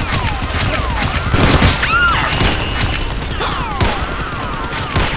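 Gunfire sound effects dubbed over a toy-blaster firefight: a rapid, uneven string of shots mixed with gliding whistle-like sweeps.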